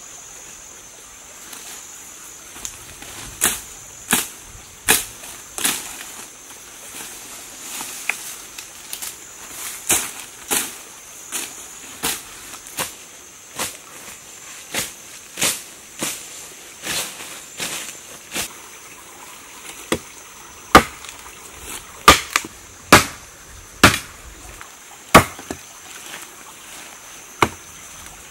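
A run of sharp chopping strikes with a hand blade on plant stems or wood, a little under one a second, louder in the second half. A steady high buzz of insects runs underneath.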